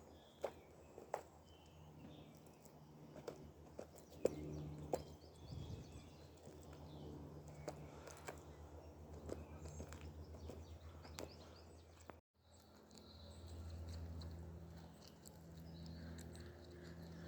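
Scattered sharp clicks and crunches of a bird of prey tearing and eating meat, over a low steady hum. The sound cuts out for a moment about twelve seconds in.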